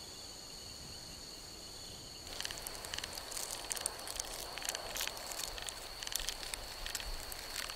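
A steady, high insect drone; about two seconds in, a dense, irregular crackling and rustling starts over it: termites crawling and chewing on dead woody plant material inside their mound.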